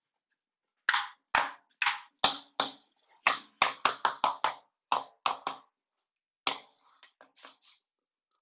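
Mallet blows knocking a floor plank into place: a quick run of about fifteen sharp knocks, several a second, then a pause and a few softer knocks near the end.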